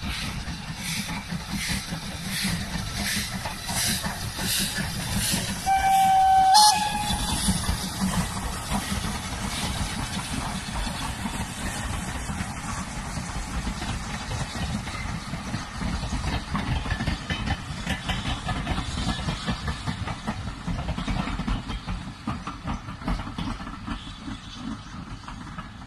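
Two steam locomotives, an LSWR T9 and an SR U class, double-heading a passenger train. Their exhaust chuffs about twice a second, and a steam whistle sounds briefly about six seconds in: one steady note, then a slightly higher one. The coaches then rumble past on the rails and fade near the end.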